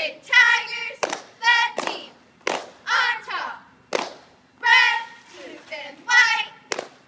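Girls chanting a cheer in short shouted phrases, with a sharp clap about every second and a half.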